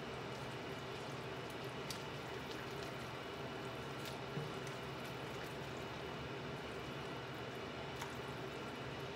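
Spaghetti in cream sauce being stirred and lifted with metal tongs in a skillet, with soft wet squelching and a few light clicks of the tongs against the pan, over a steady hum.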